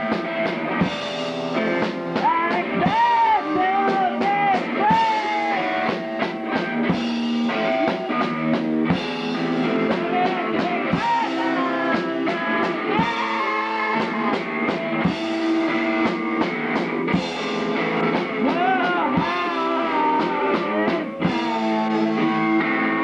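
A rock band playing live, with a drum kit, guitar and a singer. The recording is thin, with almost no bass.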